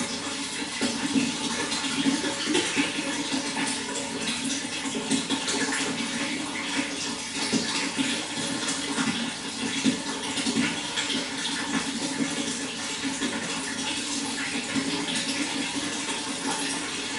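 Running water flowing steadily, a continuous rushing with small, constant flickers of splashing.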